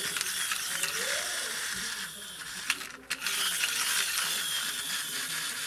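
Plastic toy car's friction motor, a flywheel gear, whirring and ratcheting as its wheels are spun. It runs in two spells of about two seconds each, with a brief break and a click in the middle. The toy is purely friction-powered, with no battery.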